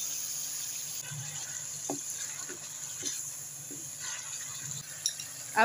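Chicken pieces frying in oil in a metal wok, a steady low sizzle, with a few light knocks of a wooden spatula against the pan.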